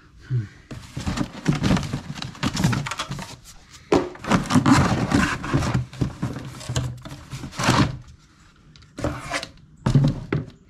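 Cardboard box and packing rustling and scraping in irregular spells as a chainsaw is pulled out of it, with a short lull near the end before one more rustle.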